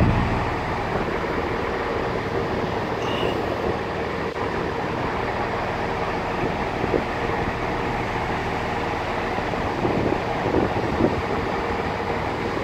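Arriva Trains Wales diesel multiple unit running at the platform: a steady engine drone with a held low hum and a mid-pitched tone, and a few faint knocks near the end.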